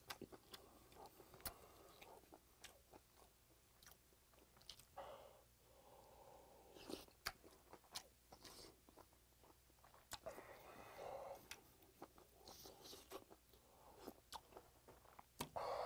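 Faint close-miked eating sounds: a person chewing pork-bone soup meat with small wet mouth clicks, and a few short slurps of hot broth from a spoon.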